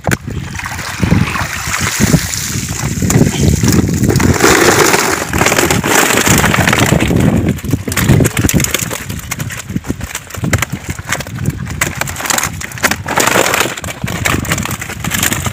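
Water sloshing and splashing as a perforated plastic fish basket of tilapia is hauled out of the water and handled, with irregular knocks and rustling throughout.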